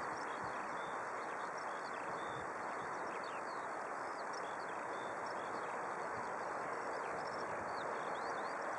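Steady, distant rushing of a jet airliner's engines on final approach. Many small birds chirp and whistle in short high notes over it.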